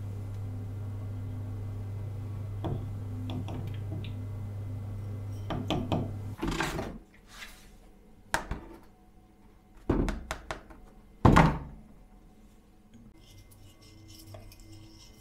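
A steady low hum with a few faint clicks, which stops about six seconds in. Then a black plastic bucket is handled and knocked against a workbench: four hollow thunks, the loudest about eleven seconds in.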